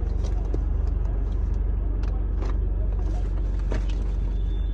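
Steady low rumble of a running car, with a few faint clicks and rustles over it.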